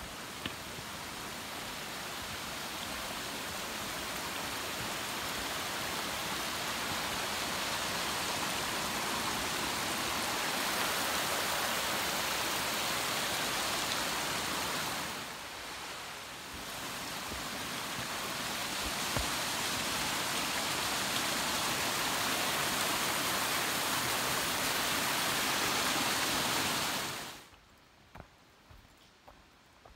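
Steady rushing of water, like a mountain stream, growing slowly louder with a brief dip near the middle and cutting off abruptly near the end, leaving faint scattered ticks.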